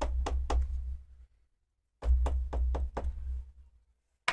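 Two quick runs of knocks on a desk, several a second, each with a low thudding rumble under it. The second run begins about two seconds in.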